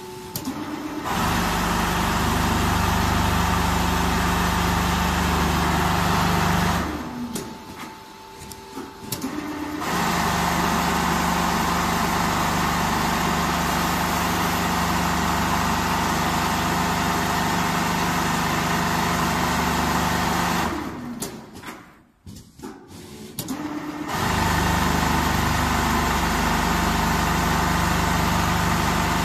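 Four-head CNC pattern sewing machine stitching quilted jacket panels, its heads running steadily at speed. It stops twice for a few seconds, about a quarter of the way in and about two-thirds through, then starts stitching again. A faint steady whine from the machine stays under the gaps.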